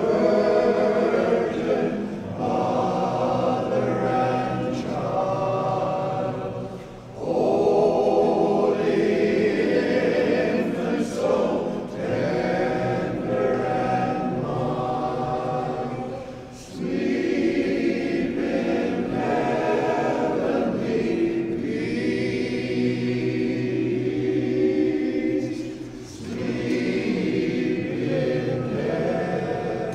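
Men's chorus singing a cappella in close harmony, in phrases separated by short breaks about every nine to ten seconds.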